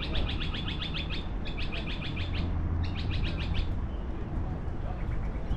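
A bird giving three quick bursts of rapid chattering notes, stopping a little over halfway through, over a steady low rumble.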